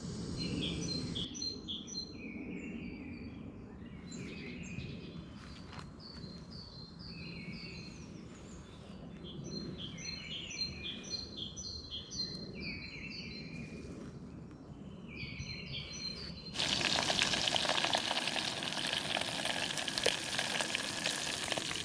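Songbirds chirping, a run of short repeated calls; about two-thirds of the way through this gives way suddenly to food sizzling loudly in a hot frying pan.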